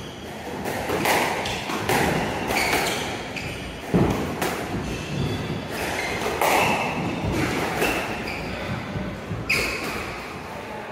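A squash rally: the ball struck by racquets and hitting the court walls, sharp echoing hits about once a second, the sharpest about four seconds in.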